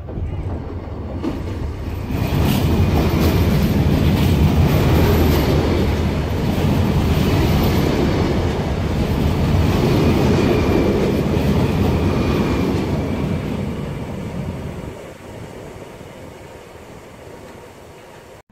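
A train passing by, loud from about two seconds in and fading away over the last few seconds.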